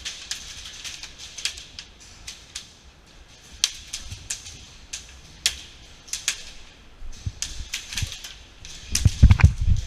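Airsoft guns firing irregular single shots, heard as sharp clicks and cracks. Near the end there is a louder low rumble.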